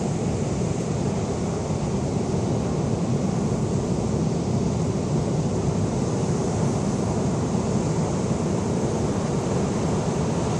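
Heavy storm surf breaking on rocks offshore: a steady, deep rumble with no single wave crash standing out.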